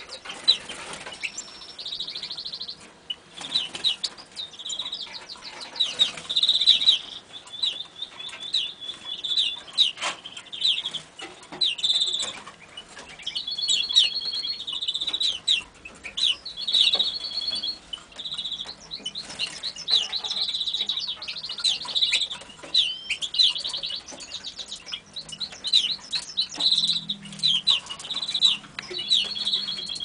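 Caged canaries and finches singing continuously: a dense chorus of chirps and rolling trills of rapidly repeated notes, with a few sharp clicks here and there.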